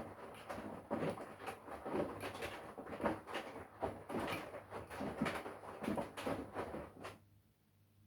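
Front-loading washing machine drum tumbling a wash load, with water sloshing and clothes thudding in irregular surges over a low steady hum. The drum stops turning about seven seconds in.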